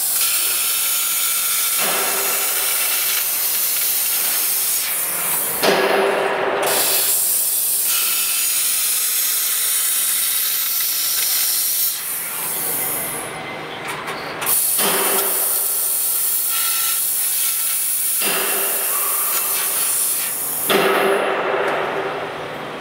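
3000 W pipe laser cutting machine cutting a steel I-beam: a steady hiss of the cutting head's gas jet and burning-through metal. It changes and restarts every few seconds as cuts begin and end, with a couple of quieter pauses when the beam is rotated.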